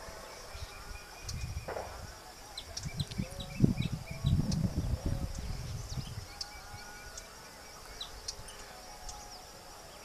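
Wetland ambience: a steady high-pitched insect drone with many short, scattered bird chirps, and low rumbling knocks in the middle of the stretch.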